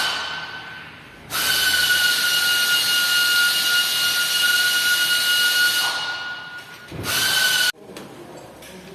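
Steady high-pitched whistle over a hiss, typical of a worn alternator belt tensioner pulley on a running Mitsubishi Pajero Sport 3 engine. The whistle fades out and starts again twice, then cuts off suddenly near the end, leaving faint clinking.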